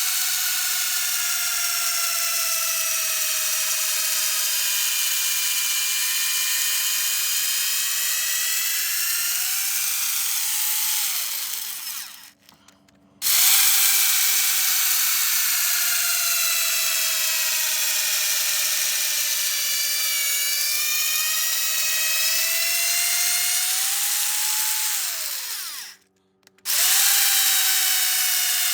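Power drill boring holes into a tree stump. The motor's whine sags slowly as the bit bites into the wood, then rises again. Twice it winds down and stops, starting up again after about a second.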